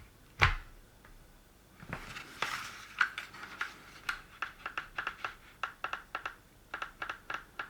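A single sharp knock, then a run of light plastic clicks, about four a second, as a power lead is plugged into a small LCD field monitor and the unit is handled; the monitor stays dead.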